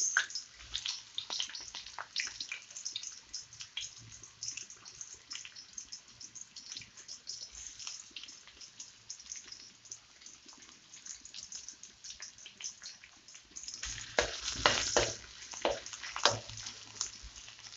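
Sliced onions sizzling and crackling in hot oil in a wok. From about fourteen seconds in, a spatula stirs them, and the sizzle turns louder and more uneven.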